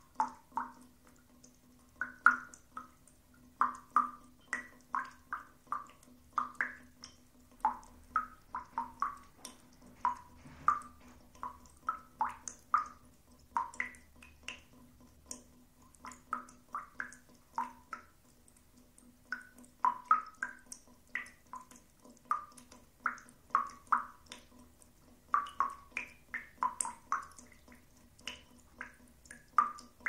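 Water dripping into a bathtub: short, pitched plinks of single drops at varying pitches, falling irregularly two or three times a second, over a faint steady hum.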